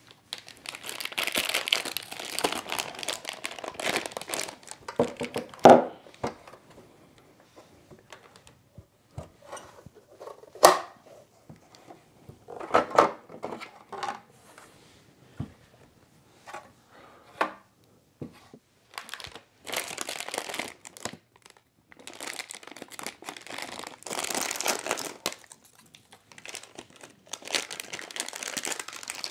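Clear plastic wrapping on a hard drive crinkling as it is handled and pulled open, in several spells. Between them come a few sharp clicks and knocks, the loudest about six and eleven seconds in, from the plastic casing of a two-bay NAS being opened.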